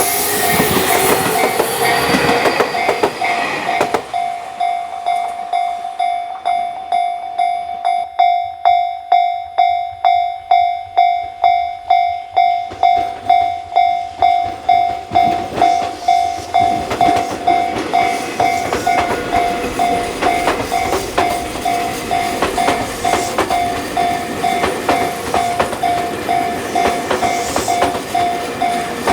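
Tobu Railway level-crossing alarm ringing at about two strikes a second with a steady electronic clang. A train's running noise fades out in the first few seconds, and another train's rumble and wheel clatter build up from a little past the halfway point while the alarm keeps ringing.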